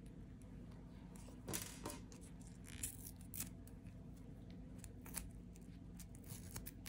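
Faint, scattered rustles and small ticks of a thin black Lego string being unwound from the paper card it is wrapped on, over a low steady hum.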